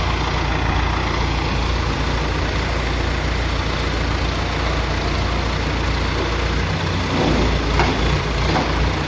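Truck crane's diesel engine running steadily, with a few light knocks near the end.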